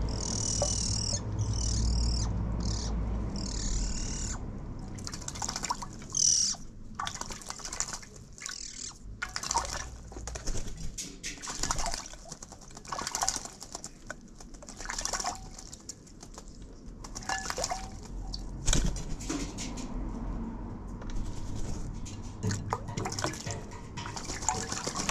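Eurasian magpie bathing in a shallow dish of water: short, irregular bursts of splashing and wing flutters, on and off.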